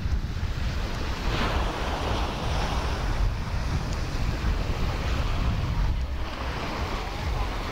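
Wind rumbling on the microphone over the wash of surf on a sandy beach.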